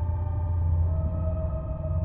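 Slow ambient background music: a steady low drone with held higher tones above it, the higher tones changing about a second in.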